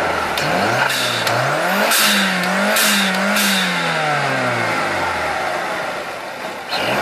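Mazda MZR four-cylinder engine with an open cone air filter, revved with no load. The revs climb over about two seconds, hold high for a couple of seconds, then fall back to idle about five seconds in.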